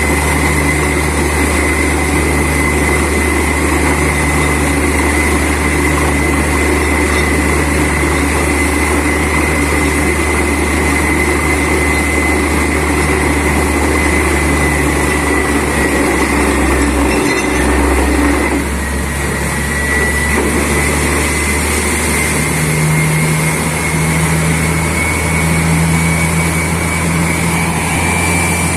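Borewell drilling rig and its air compressor running steadily under load, a heavy low drone with a thin high whine. About two-thirds of the way through the sound shifts slightly and drops a little in level, and the whine then rises slowly in pitch.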